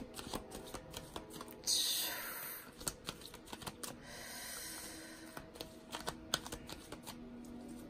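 A deck of tarot cards being shuffled and handled: quick light clicks and flicks of cards against each other, with a louder swish of the deck about two seconds in.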